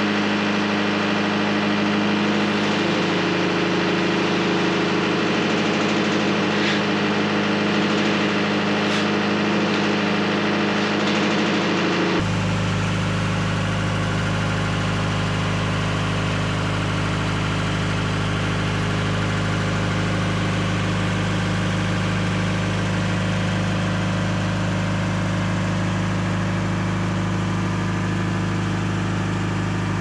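Wood-Mizer LT70 bandsaw mill's engine running steadily as the blade saws along a hard maple log. About twelve seconds in the sound changes abruptly to a deeper, stronger drone.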